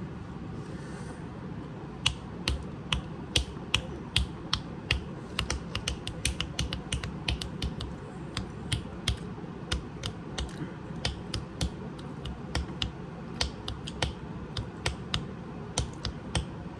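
Fingers snapping and clicking by hand: an irregular series of sharp snaps, about two or three a second, beginning about two seconds in.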